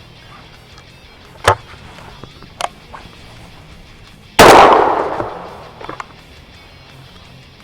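A single shot from a Berika Arms SS410 break-action .410 single-shot shotgun about four seconds in: one loud, sharp report that rings out and fades over about a second and a half. Two sharp clicks come a few seconds before it, and soft background music runs underneath.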